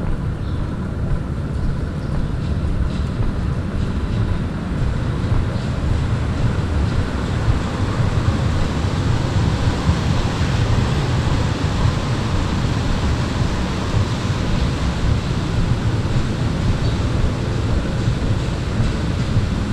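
Steady city-street ambience in rain: a low, fluttering rumble of wind on the microphone under an even hiss.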